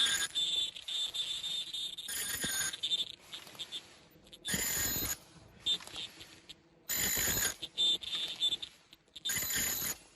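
Factory machinery cycling: a short burst of hissing noise with a high ringing tone, repeating about every two and a half seconds.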